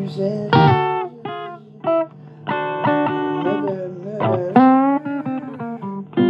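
Blues guitar music: short phrases of plucked notes, several of them sliding or bending in pitch.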